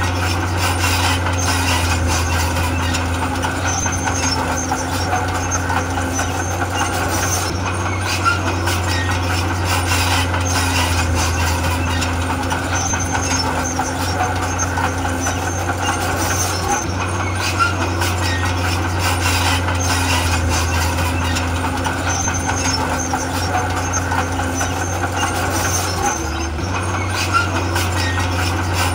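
Heavy diesel earthmoving machinery running steadily under load, a constant low drone, with faint scattered clicks over it.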